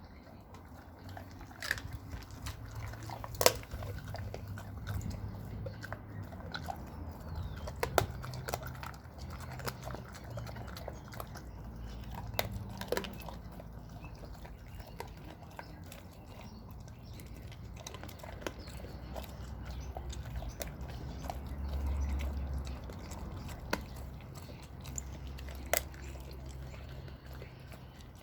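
American bulldog chewing raw meat and bone, with sharp, irregular cracks and crunches as the bones break between its teeth.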